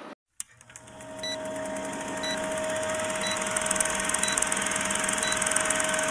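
Retro film-countdown sound effect: a steady film-projector whir and hiss that builds up after a brief silence, with a short tick once a second as the countdown runs.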